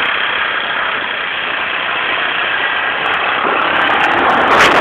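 ATV engine running steadily, heard as an even rushing noise.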